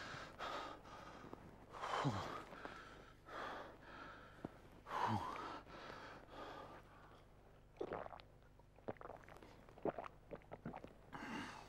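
A man breathing heavily and sighing: two long exhalations with falling pitch, about two and five seconds in, then small clicks and rustles near the end.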